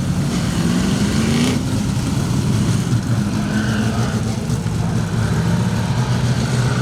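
Several dirt-track Street Stock race cars' engines running at idle together, with a short rise in engine pitch about a second and a half in.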